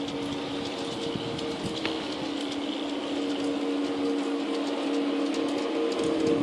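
LGB garden-scale model of an RhB Ge 4/4 III electric locomotive running, its Dietz sound module and motor giving a steady two-tone hum with light clicks of wheels on the track. It grows louder near the end as the train approaches.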